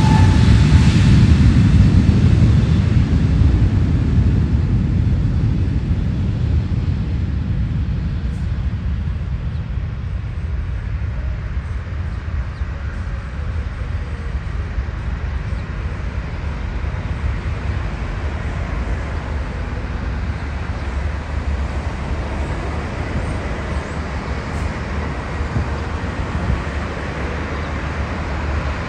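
Jet airliner engines: a loud rumble that fades over the first several seconds, then a steady low rumble of jet noise.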